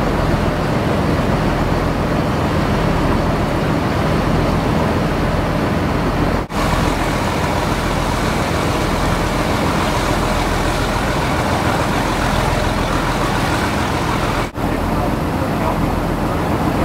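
A fishing boat's engine running steadily underway, with a constant rush of wash and wind over it. The sound drops out for an instant twice.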